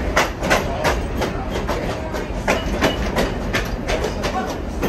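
Train wheels clicking over rail joints as a passenger car rolls along, a quick uneven run of clacks over a low rumble.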